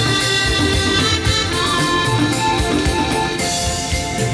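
Instrumental accompaniment for a choir song playing an interlude with a steady beat and no singing.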